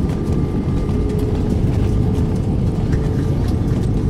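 Cabin noise of an Airbus A320 rolling out on the runway just after touchdown, ground spoilers raised: a loud, steady rumble of the wheels and jet engines with a faint steady hum running through it.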